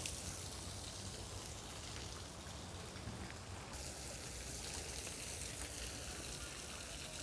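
Small artificial waterfall pouring from a rock grotto into a pond: steady splashing water.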